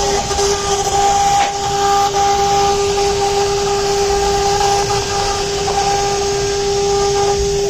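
CNC router's 6 kW air-cooled spindle running at speed: a steady high whine over an even hiss.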